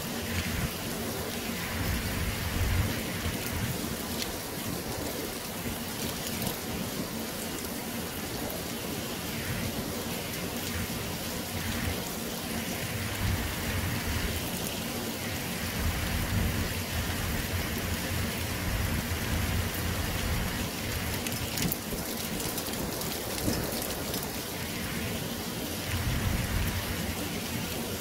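Heavy rain pouring steadily in a thunderstorm, with low rolls of thunder swelling up several times.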